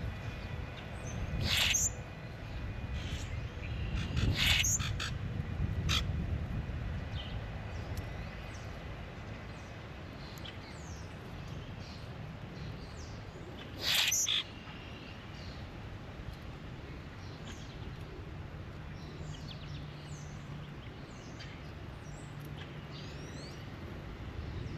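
Wild birds calling at the water bowl: three loud calls about 2, 4 and 14 seconds in, and many small chirps through the rest, over a low steady background rumble.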